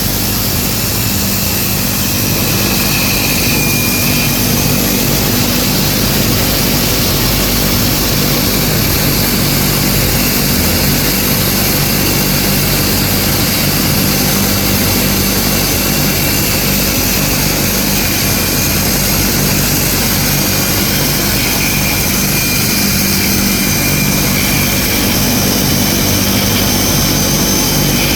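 Worm drive circular saw running steadily under load, cutting through stacked plywood sheets along a straight-edge guide.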